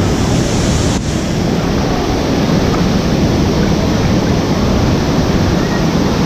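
Waterfall's water rushing and crashing, a loud, steady roar with no rhythm.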